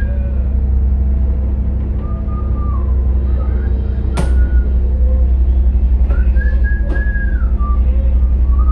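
Tugboat's diesel engine running with a steady low drone, heard from inside the wheelhouse, growing a little louder and pulsing from about five seconds in. A few short whistled notes and two sharp clicks sound over it.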